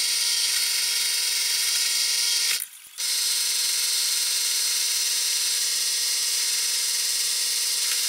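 Benchtop drill press running steadily, its motor whine under a strong high hiss, as a small twist bit drills a hole in a small metal bracket. The sound drops out briefly about two and a half seconds in, then carries on.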